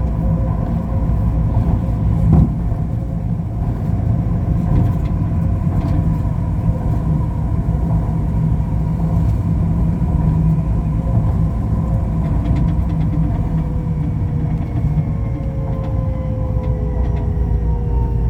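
Ui-Sinseol light-rail train running between stations, heard from inside the car: a steady low rumble with a motor whine whose pitch falls over the last few seconds. A single brief knock about two seconds in.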